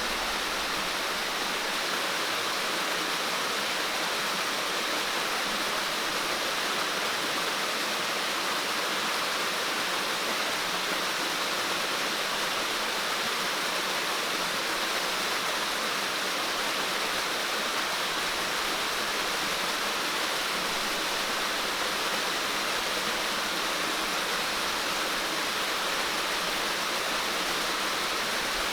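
Steady rush of water, an even hiss that neither changes nor stops.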